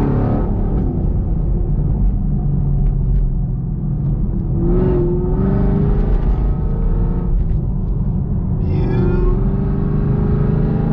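Modified Camaro SS 6.2-litre V8 with Kooks headers and a Borla ATAK exhaust, heard from inside the cabin while accelerating. The engine note climbs in pitch, drops at an upshift and climbs again, twice over.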